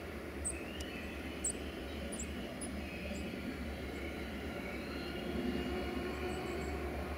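Distant EGM621 diesel locomotive hauling a passenger train out of the station: a steady low rumble with faint high tones drifting in pitch. Short high chirps come through in the first three seconds.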